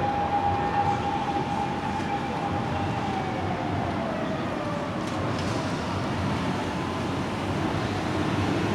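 Police emergency-vehicle siren on a Nissan Caravan accident-response vehicle, holding one wailing tone, then falling in pitch and fading away about three seconds in. Steady rushing expressway traffic noise runs underneath.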